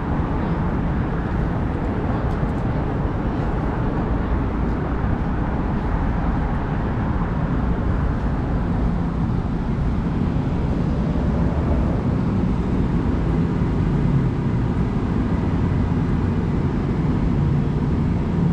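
Steady running noise of a moving vehicle, with a low hum under a continuous rush that gets a little stronger partway through.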